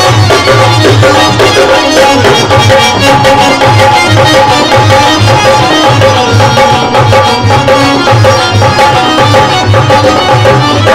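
Live instrumental bhajan accompaniment through loudspeakers: a hand drum keeps a steady rhythmic beat under sustained held notes from a melody instrument, with fine jingling clicks on top.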